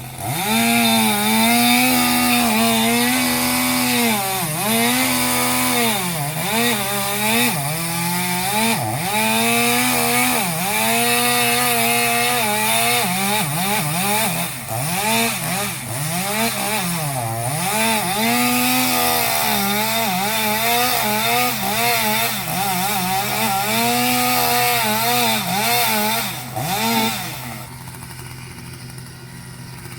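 Chainsaw running at high revs and cutting, its note dipping again and again as it bogs under load and then picking back up. A steady low hum runs underneath. The saw cuts off near the end.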